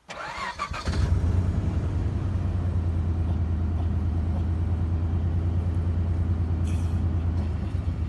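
An engine starting within the first second, then idling steadily with a low, even hum.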